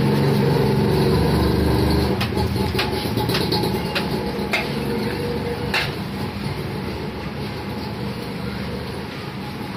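A motor vehicle engine running close by, loudest in the first two seconds and then fading away. A few sharp clicks of metal spoons against plates come over it.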